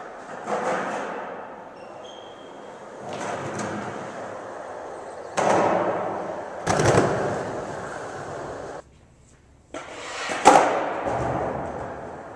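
Skateboard wheels rolling on a concrete floor, swelling and fading as the board passes. Several hard clacks of the board hitting or landing echo through the room, the loudest about ten and a half seconds in. The sound cuts out for about a second just before that.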